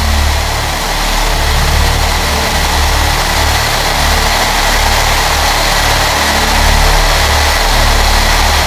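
Chance Vought F4U-4 Corsair's Pratt & Whitney R-2800 radial engine running steadily at display power, heard from inside the cockpit as a deep, even drone with a constant rush of air over the canopy.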